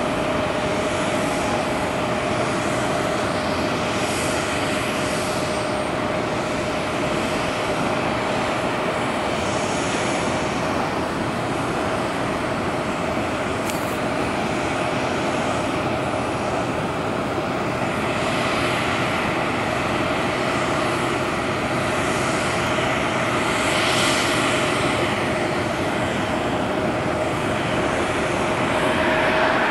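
Steady jet aircraft noise: a continuous rush with one constant whine, growing somewhat louder and brighter in the last third.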